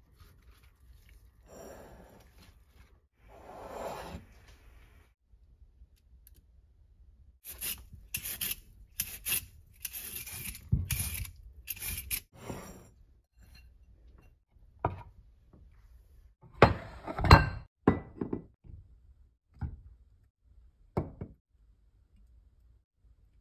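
Food-prep handling sounds. A run of quick scraping strokes comes from a julienne peeler shredding a raw carrot into thin strips over a wooden cutting board. This is followed by a few louder knocks of things being set down and a single click near the end.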